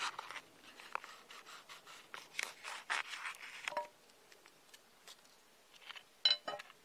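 A large tanto knife blade cutting through a double-layer aluminium-foil ration pouch, the foil crinkling and rasping in a series of short strokes over the first four seconds, then quiet.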